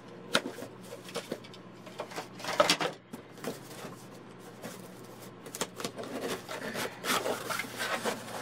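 Influenster VoxBox cardboard box being handled and opened: scattered knocks and scraping of card, with one louder burst of handling about two and a half seconds in and a longer stretch of rustling near the end.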